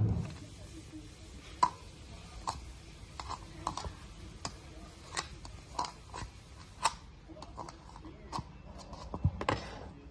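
Hard plastic toys clicking and knocking together as a baby handles them, a yellow plastic bowl and small plastic pieces tapped and bumped in irregular short clicks, one or two a second.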